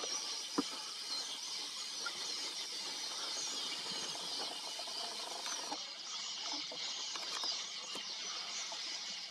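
Many small birds twittering and chirping together in a continuous high-pitched chorus, with one sharp click about half a second in.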